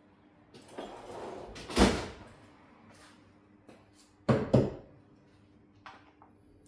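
Hard objects being handled: a scraping slide ending in one loud knock, then two sharp knocks in quick succession a couple of seconds later, and a few light clicks near the end.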